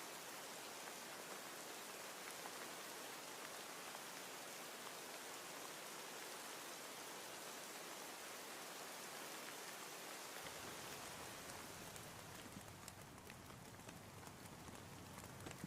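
Steady faint rain hiss. About two-thirds of the way in a low rumble comes in and the hiss softens, with scattered light drop ticks.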